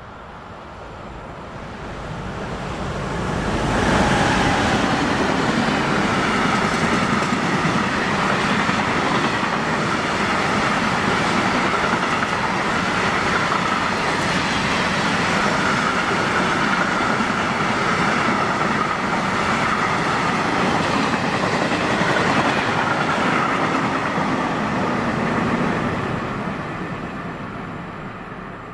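Freight train passing at speed. It grows louder over the first four seconds as the locomotive arrives, then a long string of empty flat wagons rolls by on the rails at a steady level, and the sound fades near the end as the train moves off.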